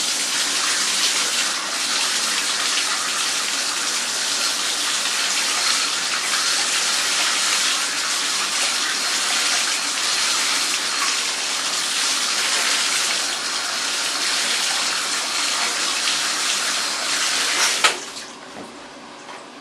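Water running hard from a bathtub tap, rinsing the carpet shampooer's plastic front plate as a steady gushing hiss. It cuts off suddenly with a click near the end.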